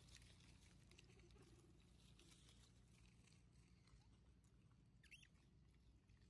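Near silence: faint patter and rustling in dry leaf litter, with one brief high chirp about five seconds in.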